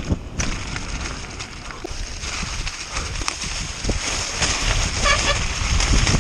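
Mountain bike descending fast over frozen grass and leaf litter: steady rushing wind noise and tyre roar with knocks and rattles from the bike as it hits bumps. A brief high chirping sound comes about five seconds in.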